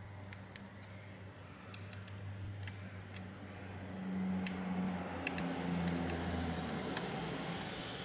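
Small scattered clicks and ticks of fingers handling a laptop's thin trackpad ribbon cable and its plastic connector on the motherboard, over a low hum that grows a little louder about halfway through.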